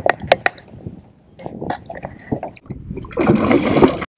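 A few short clicks early on, then a burst of water splashing in the last second as a released largemouth bass kicks free from the hand at the boat's side.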